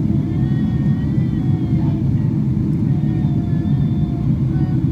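Steady low rumble of airflow and engines heard inside the cabin of a Boeing 777-300ER from a window seat over the wing as the airliner descends.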